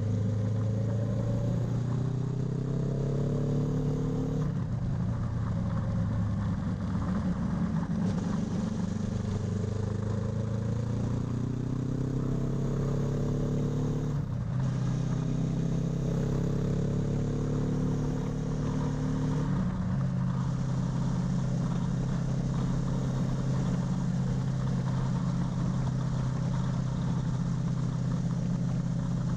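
Honda CB500X's parallel-twin engine heard through a Scorpion RED Power slip-on exhaust on the move. The exhaust note climbs in pitch through several accelerations, each ending in a sudden drop at a gear change, then holds a steady cruising note for the last third.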